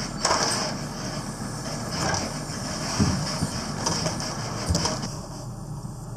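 Heavy machinery running with a steady noise and scattered clanks and knocks; the sound changes abruptly about five seconds in.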